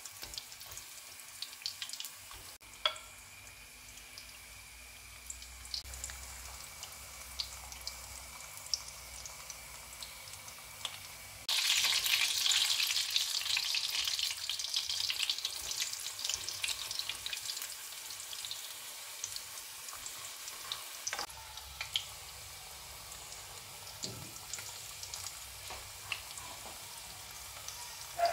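Batter fritters frying in shallow oil in a frying pan, a steady sizzle with light clicks of a fork against the pan. The sizzle grows suddenly louder a little before halfway, then eases off again.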